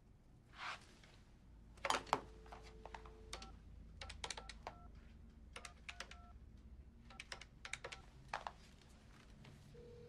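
Corded desk telephone: the handset is picked up with a couple of clicks, a dial tone sounds for about a second, then a number is punched in on the touch-tone keypad, each key a click with a short beep, in quick runs. The line starts ringing near the end.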